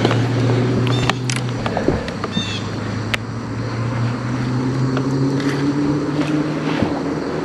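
A boat motor running with a steady low hum, its pitch lifting slightly around the middle, with a few light clicks and knocks over it.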